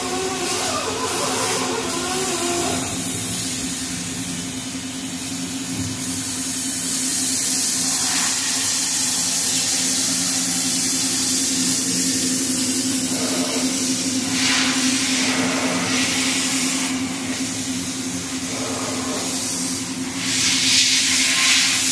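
Makino A77 horizontal machining center running, with a steady machine hum and a high hiss that swells in several surges. A wavering whine in the first couple of seconds settles into the hum.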